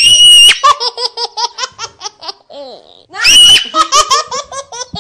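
A loud, high-pitched shriek followed by a fast run of laughter, and then again about three seconds in: a second shriek and another run of laughter.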